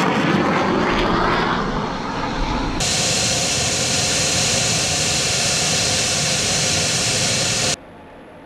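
F-35A Lightning II jet engine noise. First the jet rolls past, its sound sweeping as it goes. Then there is a hard cut to steady, slightly louder jet noise, which stops abruptly near the end and leaves a faint hiss.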